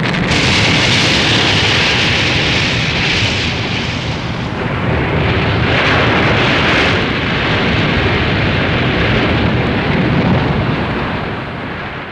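Dragon Ball Z water sound effect: a long, loud rush of churning water over a low rumble, starting suddenly, swelling twice, and fading out at the end.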